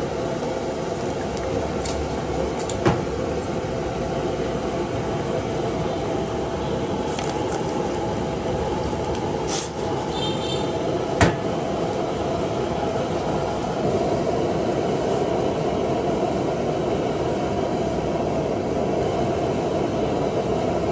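Water at a rolling boil bubbling steadily in a pan over a gas burner. About ten seconds in, pieces of porcupine puffer fish are tipped in from a steel bowl, with a sharp clink of metal.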